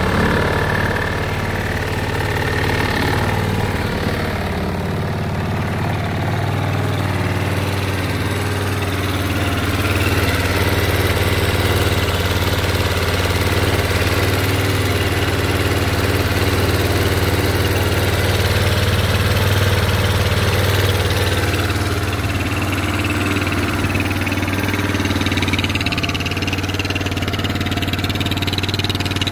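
Keeway 250 ATV engine idling steadily.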